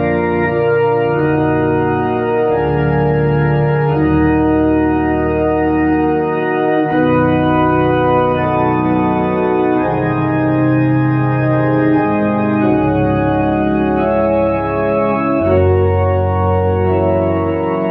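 Tokai YX 400 Organist electronic organ playing a slow church hymn on a pipe-organ registration: full held chords over a bass line, moving to a new chord every second or two.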